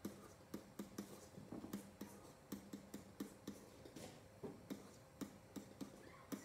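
Digital pen tapping and clicking against its writing surface in short strokes while writing, about four faint clicks a second with a brief pause a little past the middle, over a faint steady hum.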